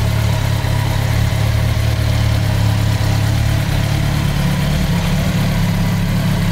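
Honda CBR1100XX Super Blackbird's inline-four engine idling steadily.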